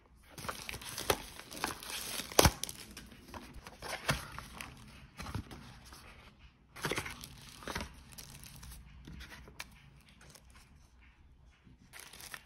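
Paper packaging of a UV gel nail lamp being opened and unwrapped: a paperboard box and its tissue-paper wrapping crinkling and rustling, with sharp snaps, the loudest about two and a half seconds in. The rustling dies down about two-thirds of the way through and picks up again near the end.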